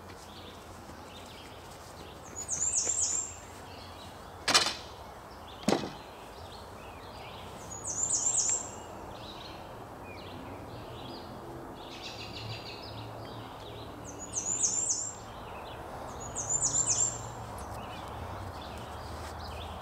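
A songbird calls four times, each call a quick run of high chirps lasting under a second, over a steady outdoor background hum. Between the first and second calls come two sharp clicks about a second apart, the loudest sounds here.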